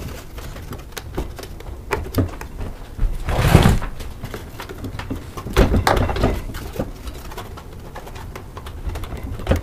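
Plastic motor shroud of a Craftsman air compressor being handled and worked loose by hand: scattered knocks and clicks, with two louder scraping, rustling stretches about three and a half and six seconds in.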